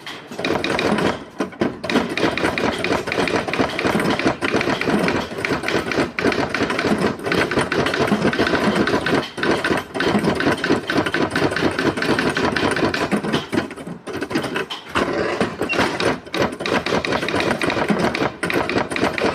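Typewriter being typed on fast: a continuous rapid clatter of key strikes, with a few brief pauses, the longest about fifteen seconds in.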